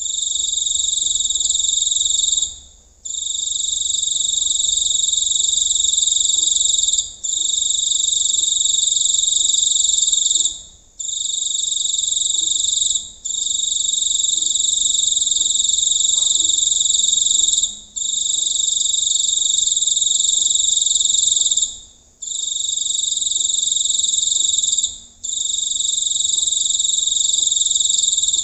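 A large cricket chirping loudly up close: a shrill, unbroken high trill that stops for a fraction of a second every few seconds and then starts again.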